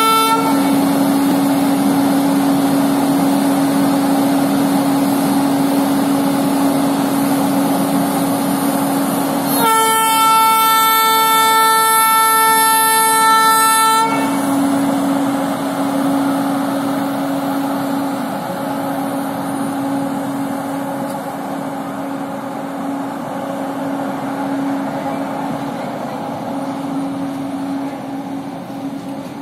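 WAP-7 25 kV AC electric locomotive pulling away under power with a steady hum, the train rumbling on the rails. A horn blast ends just after the start, and a second blast of about four seconds sounds about ten seconds in. Afterwards the rumble of the passenger coaches rolling by slowly fades.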